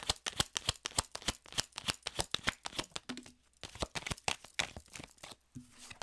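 A deck of tarot cards being shuffled overhand by hand: a rapid run of soft card flicks and slaps that slows and thins out around halfway and again near the end.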